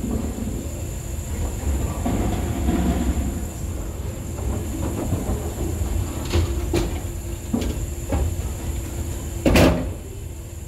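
Qubica AMF Edge string pinspotter cycling to re-set the standing pins after the first ball, over a steady low rumble. A few clicks and knocks come in the second half, then one loud knock about nine and a half seconds in.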